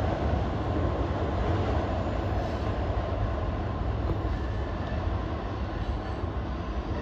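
Freight train rolling past, a steady low rumble of wheels on rail that slowly gets quieter.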